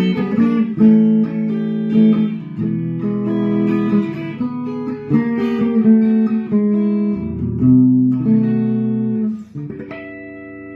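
1993 Vester VE-700 semi-hollow electric guitar playing a sequence of chords, changing about once a second. About ten seconds in, a final chord is struck and left to ring.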